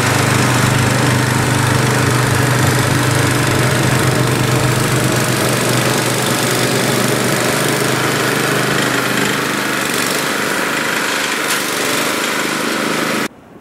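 A gas snowblower's engine, about 10 horsepower, running steadily. The sound cuts off abruptly near the end.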